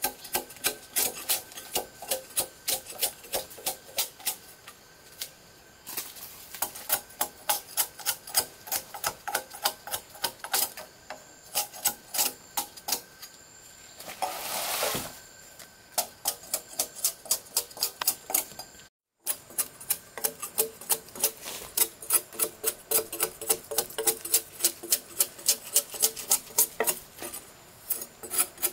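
Rapid, even knocks and scrapes of hand-tool work on wood, about four strokes a second, with a short rasping scrape about halfway through.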